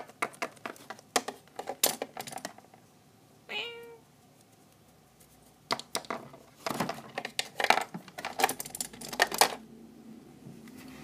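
Irregular clicks and taps of handling noise as small plastic toy figures are moved about, coming thick and fast about six to nine seconds in. A single short meow-like call sounds about three and a half seconds in.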